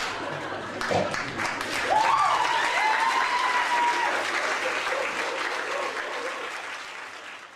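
Theatre audience applauding, with one voice calling out a long cheer about two seconds in; the clapping dies away near the end.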